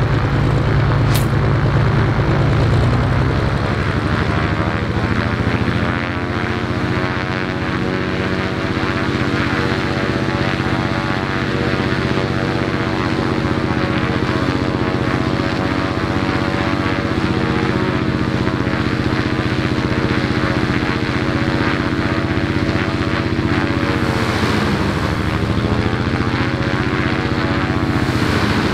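Cessna T210M Turbo Centurion's turbocharged Continental six-cylinder engine and propeller running steadily at low power on the ground.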